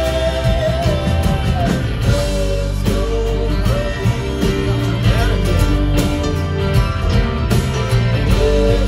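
Live band playing a song: a singing voice over acoustic guitar, electric guitar and bass guitar.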